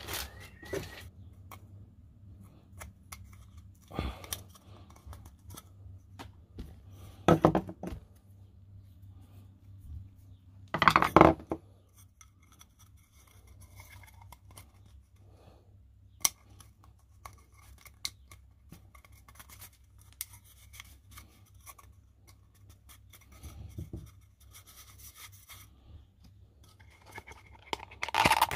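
Intermittent clicks, scrapes and rustles of hand tools and parts being handled during a car oil and filter change, with a few louder knocks, the loudest about 11 seconds in. A faint steady low hum runs underneath.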